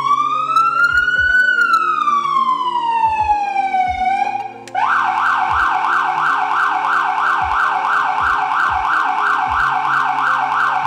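Phoenix Storm Pro electronic siren sounding its standard wail, a slow rise and fall in pitch. A little under five seconds in it switches abruptly to the yelp tone, rapid up-and-down sweeps repeating several times a second.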